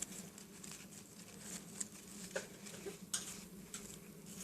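Faint handling noises from a hair bow being turned in the hands: a few scattered light clicks and rustles over a low steady hum.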